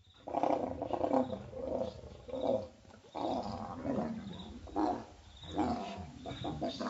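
Leopards growling during mating: a series of rough, rasping growls about a second apart.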